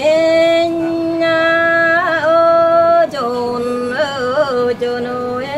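Traditional Mường folk singing: a solo voice holding long, loud notes, ornamented with wavering turns in pitch and stepping down to a lower held note about three seconds in.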